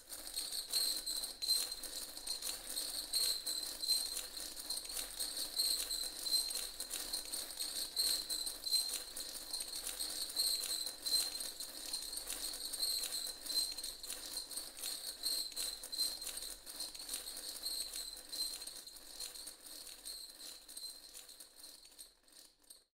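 Sound effect of many dominoes toppling in a chain: a dense, rapid clatter of small clicks that thins out over the last few seconds and stops suddenly.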